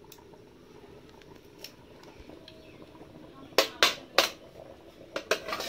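Steel lid knocking against the rim of an iron wok as it is gripped and lifted: three sharp metallic clacks about three and a half seconds in and a few more near the end, over a faint crackle of the wood fire.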